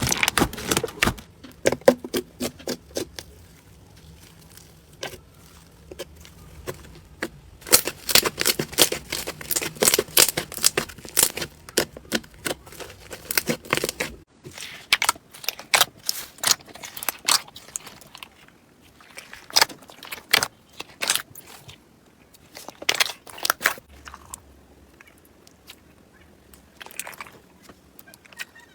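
Slime being squeezed and pressed by hand, giving bursts of crackling clicks and pops with quieter stretches in between.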